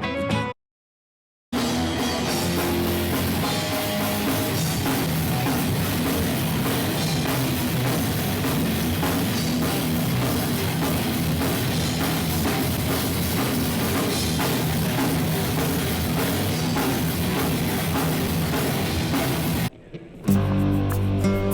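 Loud rock music with a drum kit and guitar, in a heavy-metal style. It cuts to complete silence for about a second near the start, and drops out briefly again near the end.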